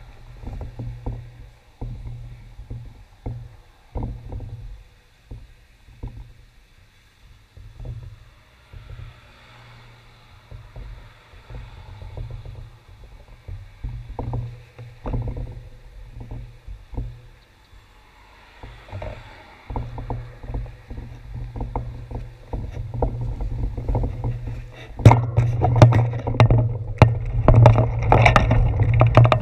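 Low, uneven rumble with scattered ticks from a handlebar-mounted camera while the bicycle stands still. About 25 seconds in, the bike gets rolling along the concrete sidewalk and the sound turns much louder: a heavy rumble with quick, dense rattling clicks.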